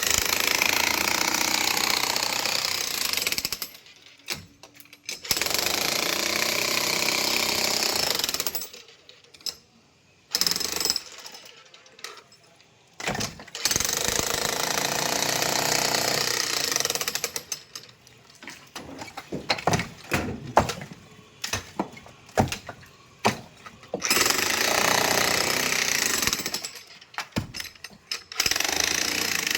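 Jackhammer breaking concrete, running in bursts of a few seconds at a time, with scattered sharp knocks in the pauses between bursts.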